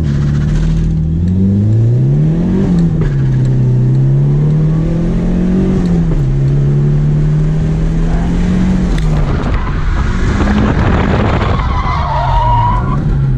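Nissan S13's stock SR20DET turbocharged four-cylinder engine, heard from inside the cabin, revving up and down a few times through gear changes. About two-thirds of the way through, tyre skidding noise builds as the car slides sideways in a drift, with a tyre squeal near the end.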